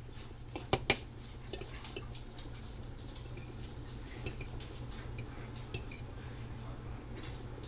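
Cutlery clinking and scraping against a plate of curry and rice in a series of sharp taps, loudest about a second in, over a steady low hum.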